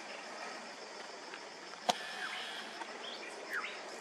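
Outdoor ambience of birds giving short falling chirps over a steady, pulsing insect trill, with one sharp click about two seconds in.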